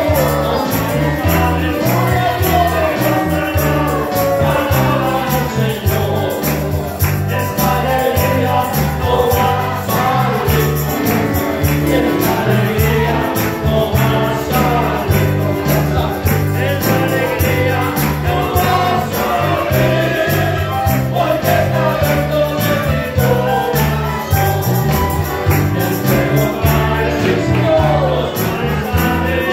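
Christian praise song: voices singing a melody over a band with a steady, repeating bass line and percussion keeping the beat.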